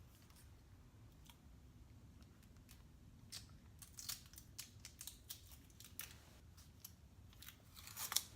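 Takeout food packaging being opened and handled: faint scattered clicks and crinkling, with a louder crinkling rustle near the end.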